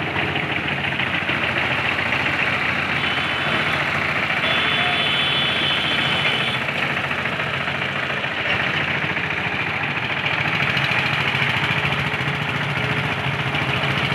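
Eicher tractor's diesel engine running steadily under load as it pulls a heavily loaded sugarcane trolley, growing a little louder near the end.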